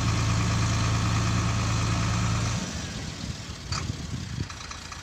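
An engine idling steadily, which cuts off abruptly about two and a half seconds in. Irregular quieter knocks and rustling follow, with one sharp click.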